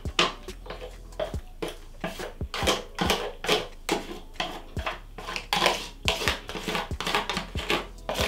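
Metal spoon scraping and clinking against a disposable aluminium foil tray, with the foil crinkling, in many quick strokes as the tray is scraped clean.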